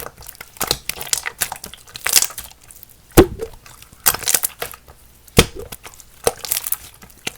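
Runny purple clear slime being squished and stretched by hand, making irregular sticky clicks and wet popping crackles. The loudest pop comes about three seconds in.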